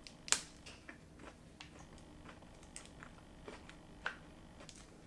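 Biting into a chocolate bunny with a crunchy malt centre: a sharp snap about a third of a second in, then sparse small crunchy clicks of chewing and of its foil wrapper being handled.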